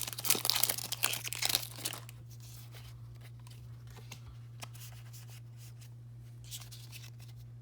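Foil Pokémon booster pack wrapper being torn open and crinkled for about the first two seconds, then only faint handling, with a low steady hum underneath.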